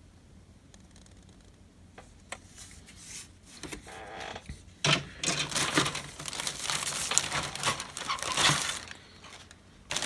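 A few light plastic clicks, then a clear plastic bag of model-kit parts crinkling for about four seconds as a hand rummages through it, with a sharp clack near the end.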